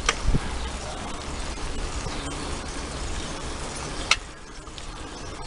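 Riding noise from a bicycle on the move: a steady rushing rumble, with a few sharp clicks, the loudest about four seconds in.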